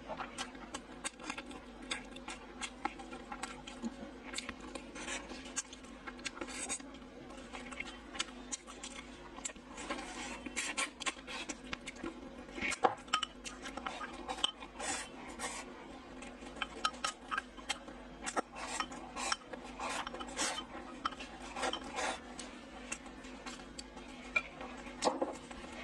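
Close-up eating sounds: chewing pork ribs and glass noodles, with many small wet clicks and smacks, and chopsticks clicking against the plate and bowl. A steady low hum sits underneath.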